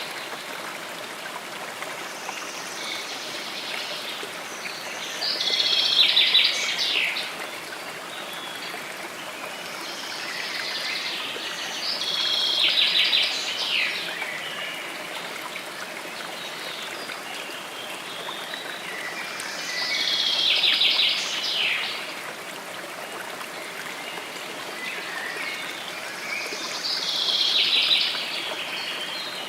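A songbird singing the same short phrase four times, about every seven seconds, each song a couple of seconds of fast trilled notes, over the steady rush of a stream.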